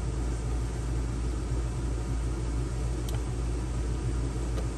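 A steady low mechanical rumble runs throughout, with one faint click about three seconds in.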